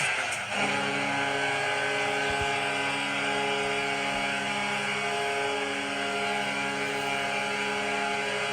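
Vancouver Canucks goal horn: a steady, held horn blast of several tones sounding together. It cuts in over music about half a second in.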